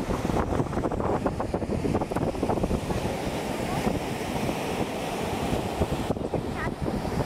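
Surf breaking on the beach with wind buffeting the microphone, a steady rushing noise heaviest in the low end.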